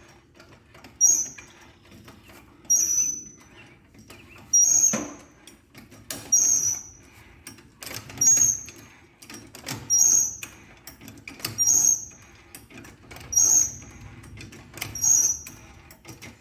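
A jack being worked to lift the back corner of a garden tractor, giving a high-pitched squeak with each pump stroke, about every two seconds, nine times, with faint clicks between strokes.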